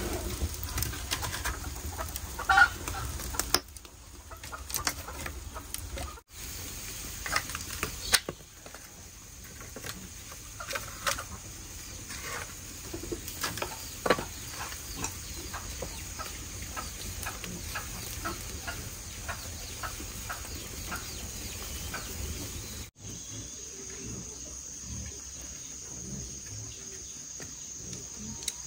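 Chickens clucking over short pops and crackles from a wood and charcoal cooking fire. The background changes abruptly a few times.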